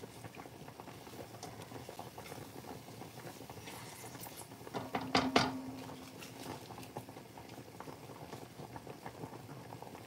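Hot oil sizzling and bubbling gently in a pot with a stock cube dissolving in it, a fine steady crackle. A few sharp clicks come about five seconds in.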